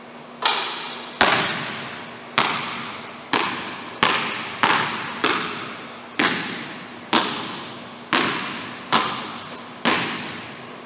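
A basketball bouncing on a hardwood gym floor, about a dozen bounces roughly one a second, each echoing briefly around the empty gym.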